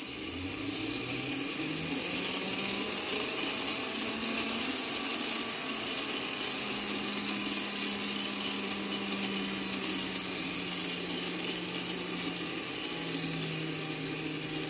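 Brass gear train of a Seikosha 8-day clock movement whirring at speed with its fan governor removed, as the mainspring is let down and unwinds into a restraining wire loop. It is a steady whirr that builds up over the first couple of seconds, with a hum that slowly drops in pitch as the spring runs down.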